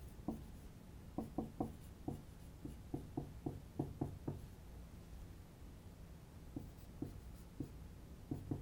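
Whiteboard marker tapping and rubbing on a whiteboard as an equation is written: quick runs of short taps in the first half, then a few spaced-out taps near the end.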